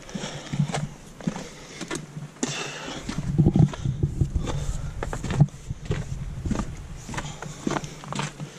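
Hiker's footsteps on a dirt trail beside snow, an uneven run of steps, knocks and rubbing on the worn camera, with a low rumble for a few seconds in the middle.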